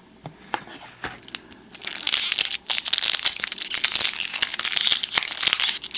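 Crinkly plastic wrapper of a 1991 Topps Stadium Club baseball card pack being torn open and crumpled in the hands. It is a dense crackling that starts about two seconds in, after a few light clicks.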